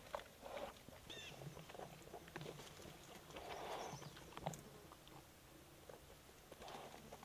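Wild black bear tearing into a rotten stump and feeding on ant pupae: faint scattered cracks and crunches of crumbling rotten wood, mixed with chewing.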